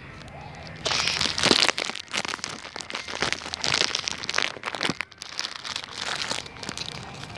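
Irregular, close crunching and crinkling noise that starts about a second in and comes in uneven bursts.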